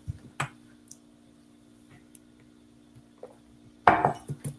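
Quiet room tone with a steady low hum, broken by a few small clicks. Near the end comes a short vocal sound from the presenter, a breath or throat sound.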